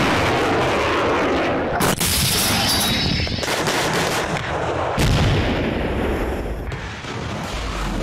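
Rocket launches and artillery fire: a long, loud rushing noise of rocket motors, with fresh blasts about two seconds and five seconds in.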